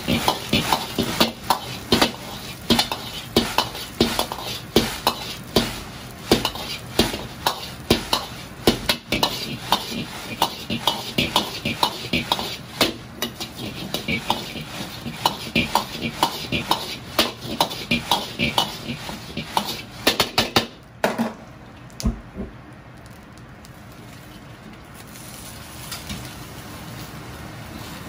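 Metal ladle clanking and scraping against an iron wok, about two or three strikes a second, while dried chilies are stir-fried with a sizzle. The strikes stop about 21 seconds in, leaving a steady, quieter noise.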